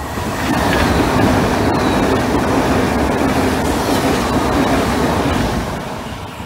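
Italo high-speed electric train passing through a station at speed: a loud rush of wheels on rail and air noise that swells about half a second in, holds steady, and eases off near the end as the train moves away.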